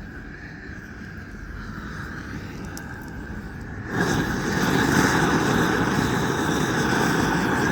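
Gas roofing torch burning with a steady rushing hiss, turned up and becoming much louder about four seconds in, as it heats the bitumen of a torch-on membrane patch.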